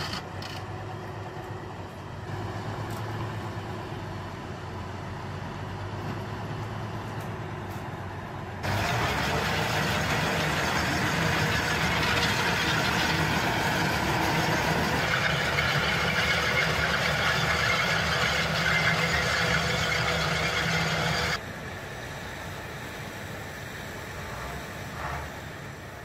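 Diesel engine of a heavy tracked log-carrying machine running under load. The sound jumps sharply louder about a third of the way in and drops back abruptly about five seconds before the end.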